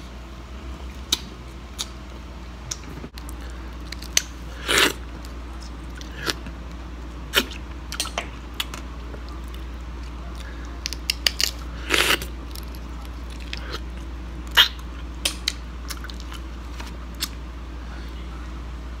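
Sun-dried Asian clam shells being pried apart by hand: scattered sharp clicks and cracks of shell, with a few short, louder eating sounds as the meat is taken from the shells.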